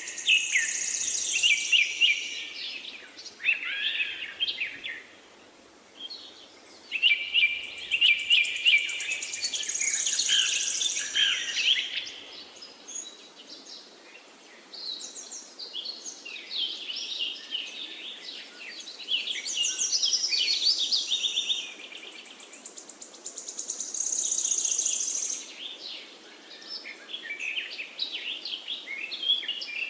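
Several songbirds chirping and singing in overlapping bursts of rapid, high trills and twitters, with brief lulls between the bursts.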